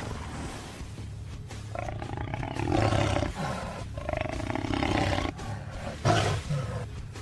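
Custom monster sound effect: a creature's roar, given as two long drawn-out calls about two seconds apart, then a short sharp call near the end, over a low steady hum.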